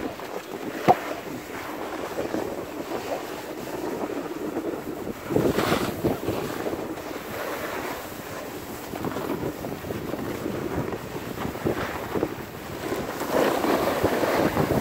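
Continuous scraping hiss of board edges sliding over packed, groomed snow while riding downhill, with wind buffeting the microphone; it swells in the middle and again near the end. A single sharp click about a second in.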